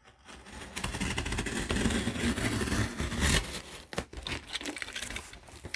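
Box cutter blade slicing along the packing tape on a cardboard box seam: a steady scraping rasp with cardboard rustling for a couple of seconds, then a few shorter scrapes and clicks near the end.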